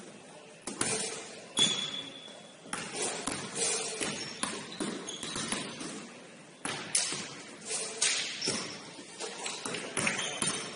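Sounds of a basketball game in play: sneakers squeaking on the court and the ball bouncing, with scattered sharp knocks and thuds.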